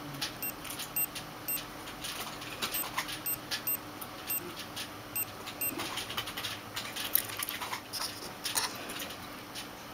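Tamagotchi Ocean virtual pet giving short high beeps as its buttons are pressed, about ten in the first six seconds, over the clicking of its plastic buttons and fingers handling the egg-shaped case. The clicks grow busier in the last few seconds, with no beeps.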